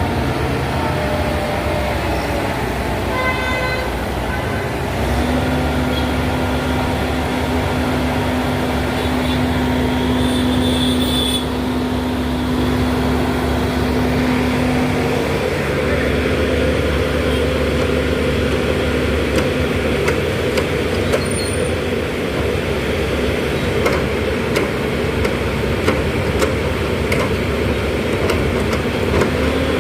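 Heavy engines of road construction machinery and traffic running steadily, with a short horn toot about three seconds in.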